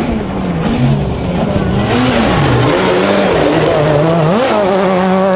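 A rally car's engine working hard on a gravel stage: the engine note dips and climbs several times with throttle lifts and gear changes, then holds and rises slowly near the end, with gravel and tyre noise underneath.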